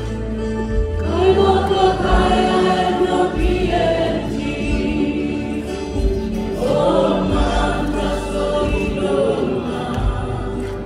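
A choir of many voices singing a gospel song over steady, held low notes. The singing swells about a second in and again around seven seconds.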